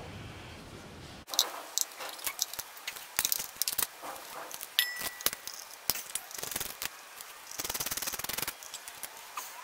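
Hand tools clicking and clinking against metal as bolts are worked loose on a motorcycle engine's water pump. A quick run of ratchet-wrench clicks comes about eight seconds in.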